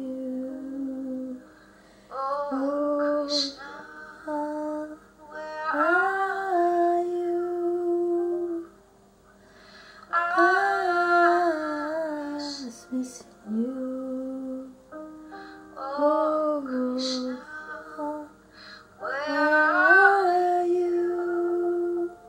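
A woman singing a slow ballad to her own upright piano accompaniment, in sung phrases a few seconds long with held piano notes between them, played back through a computer's speakers.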